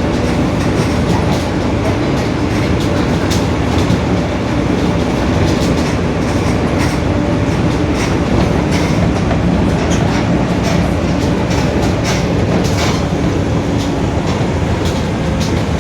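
Mercedes-Benz OF-1721 city bus under way, its differential droning very loudly: a steady heavy rumble with a faint held whine in it, over frequent small rattles and clicks.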